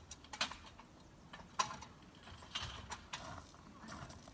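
Irregular metal clicks and knocks from the poles of a military CP tent frame being handled and fitted together, the sharpest about a second and a half in, with steps on gravel.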